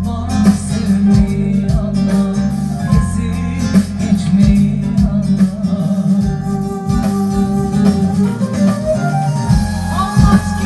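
Korg Pa4X arranger keyboard played live: a melody over the keyboard's automatic accompaniment, with plucked-string backing and a steady drum beat.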